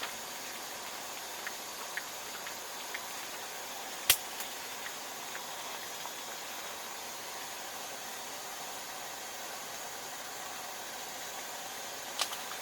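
Steady hiss, with a few faint ticks, one sharp click about four seconds in and another near the end.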